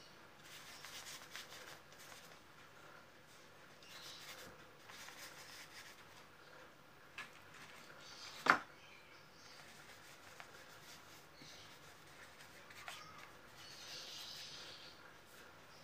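Faint scratchy rubbing of a flat paintbrush's bristles worked across paper in several short spells of strokes. One sharp click stands out a little past halfway.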